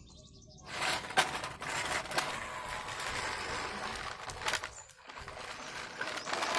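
Plastic toy dump truck pushed and handled on rough concrete: its wheels and body scrape and rattle, with a few sharp plastic knocks.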